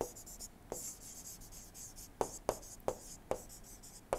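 Stylus writing on a tablet screen: faint scratching with about six light, sharp taps as a word is handwritten.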